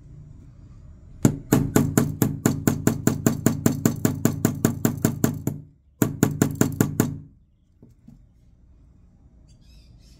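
Small hammer tapping a thin pin punch in quick, even blows, about six a second, in two runs with a brief pause between them, driving the trigger safety pin out of a Glock trigger shoe. The pin is stiff, and the punch is starting to bend under the blows.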